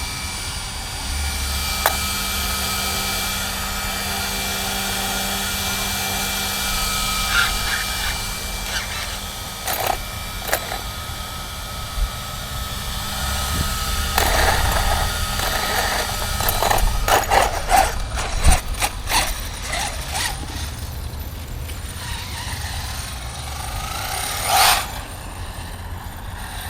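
Electric motor of the battery-powered Dunerunner RC truck whining as it runs, with scattered knocks and crunches from the truck over rough ground in the second half.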